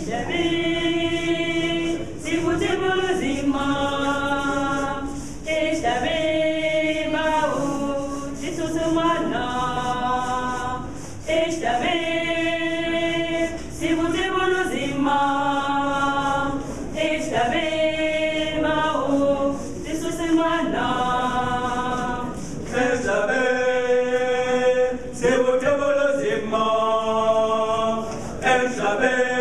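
Mixed choir of men and women singing a cappella in harmony, held chords in phrases a few seconds long, with handclaps keeping time.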